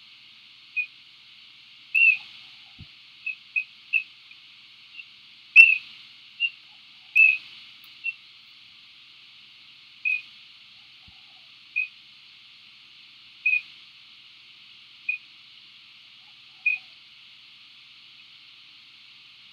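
A bird giving short, high chirps, about fifteen of them spaced irregularly, a few in quick pairs, over steady background hiss.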